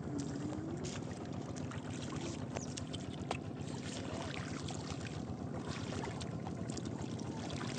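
Shallow water sloshing and splashing steadily, with scattered small clicks and knocks.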